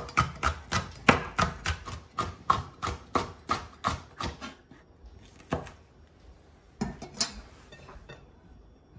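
Kitchen knife slicing a green capsicum (bell pepper) into strips on a bamboo cutting board: a quick even run of knocks as the blade hits the board, about four a second, stopping a little over halfway through, then a few separate knocks.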